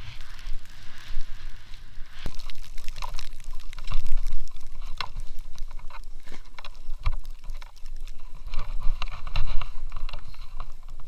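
Snow hissing and crunching under a rider carving turns through deep powder, with wind rumbling on the action camera's microphone and frequent short crunches and rustles.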